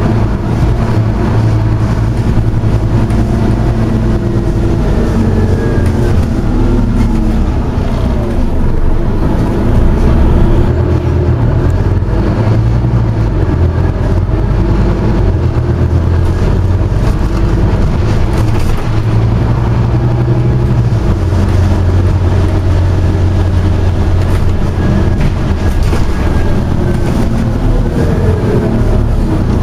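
Scania OmniCity single-deck bus heard from inside the passenger saloon as it drives: a steady low diesel engine hum whose note steps up and down, with a faint whine rising and falling several times.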